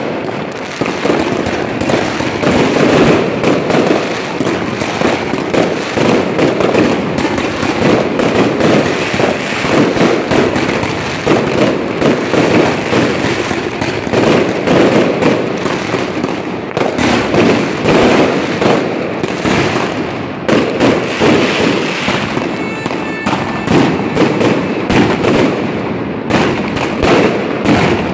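Fireworks going off in a dense, continuous barrage of rapid bangs and crackling, with no pause.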